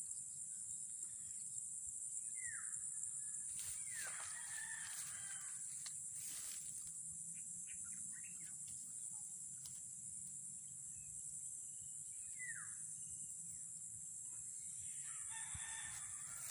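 A rooster crowing twice, about ten seconds apart, over a steady high-pitched hiss.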